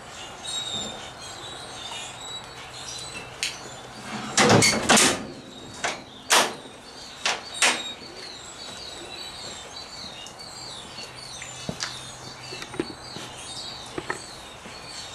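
Steel hood of a 1964 Pontiac GTO being lowered and shut. A cluster of loud clunks comes about four and a half seconds in, then single clunks over the next three seconds.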